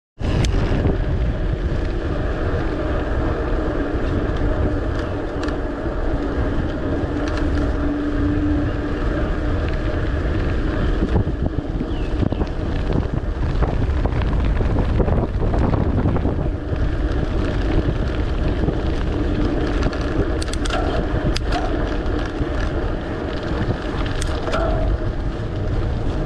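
Steady wind buffeting the microphone of a camera on a moving mountain bike, with the rumble of its tyres on asphalt. A few sharp clicks come in the last several seconds.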